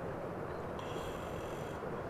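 Steady rain ambience, with a faint high tone for about a second in the middle.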